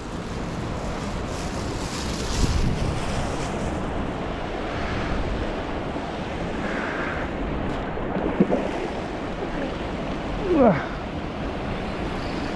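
Steady rushing noise of wind on the microphone over flowing river water, with a brief falling squeak near the end.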